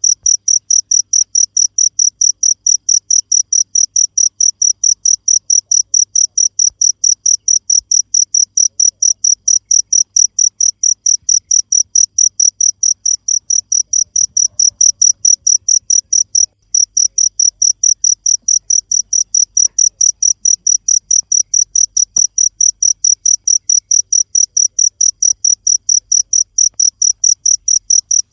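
Cricket chirping steadily: a loud, high-pitched trill of even pulses, about four a second, with one brief break about two-thirds through.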